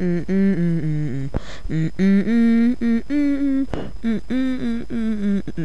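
A person humming a tune, one note after another stepping up and down, with quick breaths taken about a second and a half in and again near four seconds.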